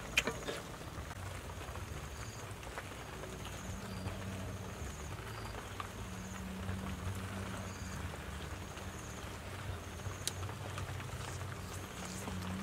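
Outdoor ambience: a short high chirp repeating about once a second over a low steady hum that comes in about three seconds in, with light scattered crackle and clicks.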